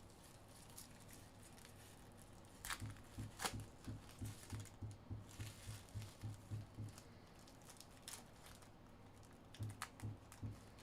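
Quiet handling of trading-card packaging, rustling and tearing of the wrappers with a few sharp clicks, over a soft low thump that repeats about two to three times a second.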